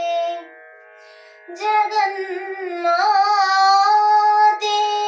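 A young female voice singing the closing phrase of a Kannada devotional song over a steady drone. A held note fades just after the start. After a short pause she sings an ornamented, wavering phrase, then holds one long steady note near the end.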